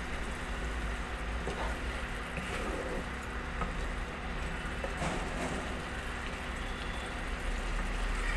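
Curry gravy simmering and sizzling steadily in a nonstick kadai while a wooden spatula stirs and turns fried fish roe pieces through it, with a few soft scrapes.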